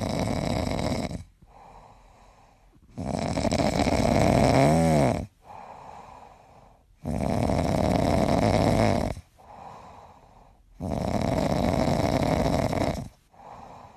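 Yellow Labrador snoring in deep sleep: four loud snores about four seconds apart, each about two seconds long, with a softer breath between them. The second snore ends in a short whistle that wavers up and down in pitch.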